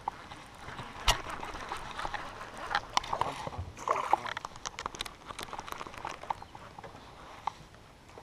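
A fishing cast with a baitcasting rod and reel: scattered clicks and knocks from the reel and rod handling, a sharp knock about a second in, and a lure splashing into the lake about four seconds in.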